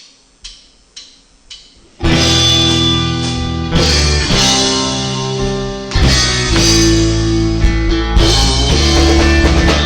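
A live rock band counted in with four clicks, about two a second, then coming in all together loud with electric guitar, bass and drum kit playing a song's opening.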